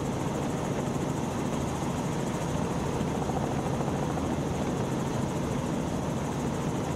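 Robinson R44 helicopter in forward flight, heard from inside the cabin: a steady, fast pulsing of the main rotor over the drone of its six-cylinder Lycoming piston engine.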